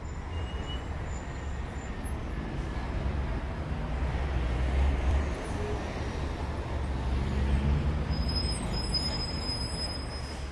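Steady rumble of road traffic, swelling slightly as vehicles pass.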